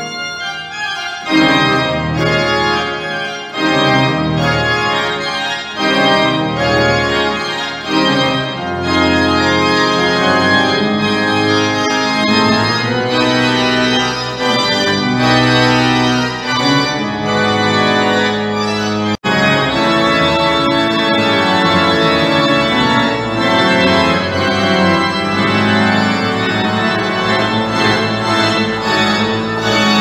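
Church organ playing a dense, sustained piece in several voices, with low bass notes under the chords. The sound cuts out for an instant about two-thirds of the way through.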